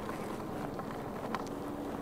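Inmotion V11 electric unicycle being ridden over a rough dirt trail: a steady rolling noise from the tyre on the ground, with wind on the microphone and a sharp click from a small stone about two-thirds of the way through.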